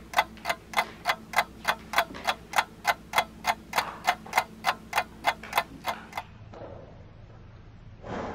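Rapid, even mechanical clicking, a little under four clicks a second, that stops about six seconds in; a short muffled sound follows near the end.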